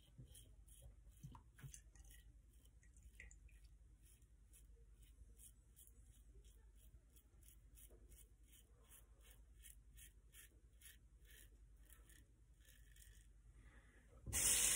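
Faint scraping of a 1960 Gillette Flare Tip double-edge safety razor with a Super Iridium blade cutting a day's stubble on the lathered neck, in quick short strokes at about two to three a second. Near the end a tap is turned on and water runs loudly into the sink, the loudest sound here.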